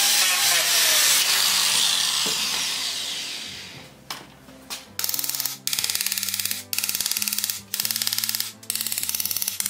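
Angle grinder on the iron runner shoe, its whine falling as it spins down over the first three seconds. Then five short rasping hand-tool strokes on the runner, about a second apart. Background music plays underneath.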